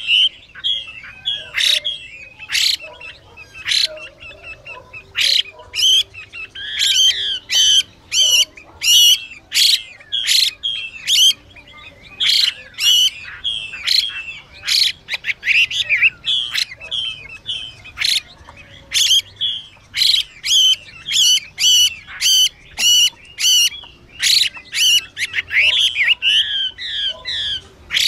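Chinese hwamei calling and singing: a fast, almost unbroken run of loud harsh call notes mixed with whistled, sliding phrases. These are the female's 'xùy' calls with male song, the kind of call played to excite captive male hwamei.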